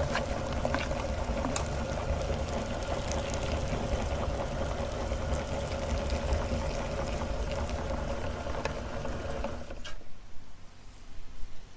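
Electric meat grinder motor running steadily with a constant hum, then switched off about ten seconds in, followed by a few light clicks.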